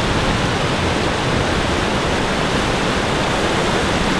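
Steady rushing of water pouring over a low river weir, an even noise that does not let up.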